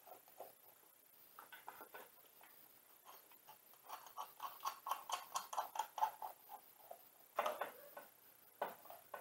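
Faint clicking of a socket ratchet in quick runs, about four or five clicks a second, from about four seconds in, as the bolts on a thermostat housing are started. Two louder knocks of metal tools near the end.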